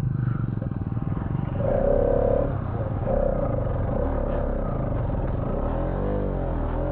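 Bajaj NS200 motorcycle's single-cylinder engine running at low speed in second gear over a rocky stream crossing, the revs rising about two seconds in and dipping and rising again near the end.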